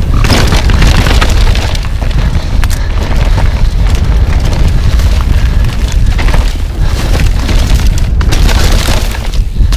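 Wind buffeting the microphone of a GoPro action camera on a fast mountain-bike descent, loud and constant. Frequent knocks and rattles come from the bike rolling over the rough dirt trail.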